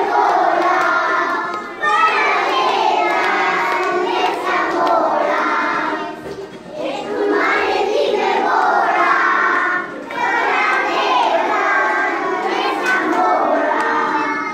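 A group of young children singing a song together, in phrases of a few seconds with short breaks between them.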